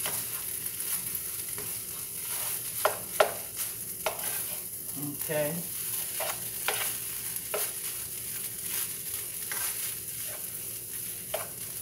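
Fried rice with shrimp and ham sizzling in a skillet while a utensil stirs it, scraping and tapping against the pan at irregular intervals.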